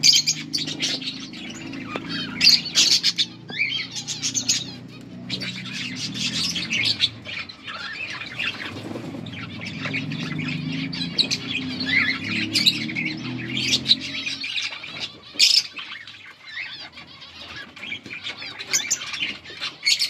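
A flock of budgerigars chirping and squawking in quick, overlapping bursts. A low steady drone runs underneath and stops about three-quarters of the way through.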